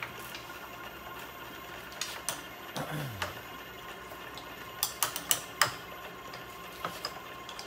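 CNC milling machine between drilling passes, its table moving under servo drive: a low steady hum, a brief falling whine about three seconds in, and a handful of sharp clicks around five seconds in.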